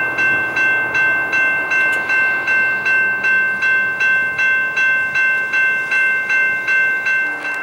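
Railroad grade-crossing bell ringing with even strikes, about two and a half a second, stopping near the end.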